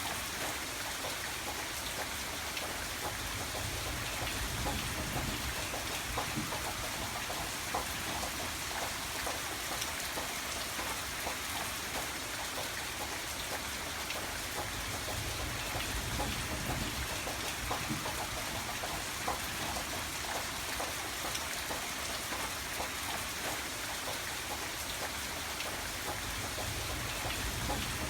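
Steady rain falling, with the patter of many individual drops striking a surface and a soft low rumble that swells and eases now and then.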